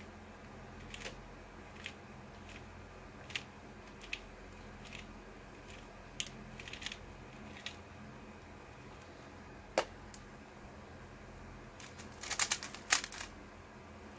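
Plastic 3x3 speedcube being turned by hand: scattered sharp clicks of the layers snapping into place, with a quick run of turns near the end.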